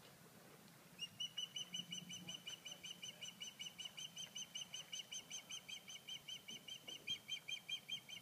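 Osprey calling from its nest: a long, unbroken run of short, high chirps, about five or six a second, starting about a second in.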